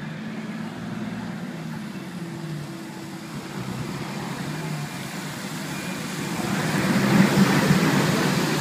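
Yellow Duckmarine amphibious tour vehicle's engine running as it drives along a wet road, growing louder with engine and tyre noise as it passes close by about seven seconds in.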